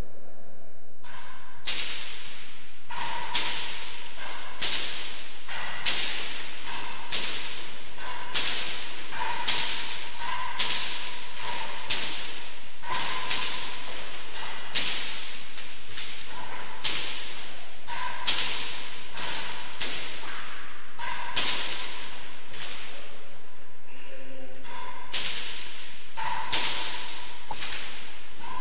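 A rally of sharp, cracking ball impacts, about one a second: a hard ball struck with rackets and rebounding off the walls and floor of an enclosed court, each hit echoing, many followed by a brief ringing tone.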